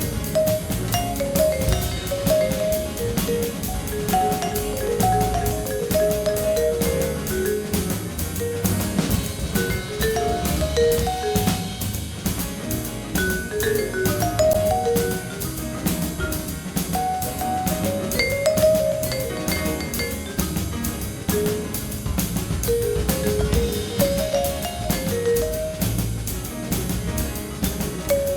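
Background music: a jazzy tune with vibraphone- or marimba-like melody over a steady drum-kit beat.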